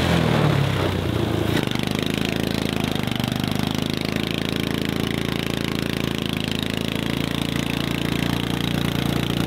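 Small engine of a kids' mini Jeep running under load as it pushes a round hay bale. Its pitch drops over the first second and a half, then it runs steadily.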